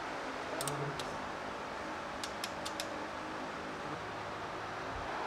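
Light metallic clicks and taps of tools and engine parts being handled, about seven in all, most of them in a quick run about two seconds in, over a steady hiss.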